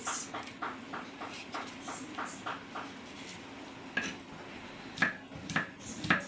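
Knife chopping vegetables on a cutting board: a regular run of knocks, about three to four a second, then a few louder separate knocks near the end.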